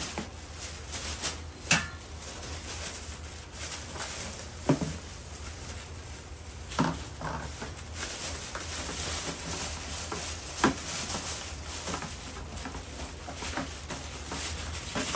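Thin plastic bag and plastic wrapping rustling and crinkling as they are handled, with a few sharp knocks of a hard plastic bucket spread through.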